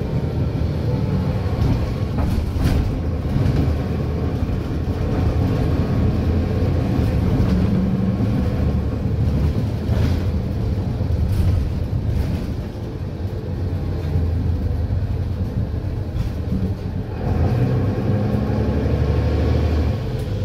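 Mercedes-Benz Citaro O530 bus heard from inside while under way: its diesel engine and six-speed ZF Ecomat automatic gearbox give a steady low drone, with a few short knocks from the body. The engine note dips briefly twice, around the middle and about three-quarters through.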